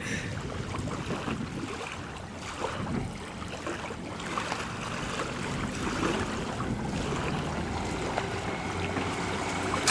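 Low steady engine hum mixed with wind on the microphone and small waves lapping at the shore.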